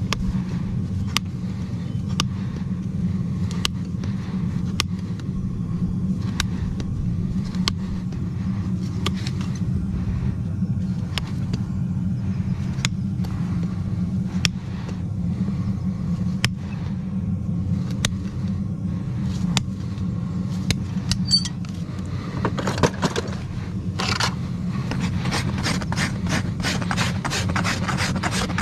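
A steady low hum with a sharp click about once a second. Near the end comes a farrier's rasp filing a hoof in quick, even strokes, about three a second.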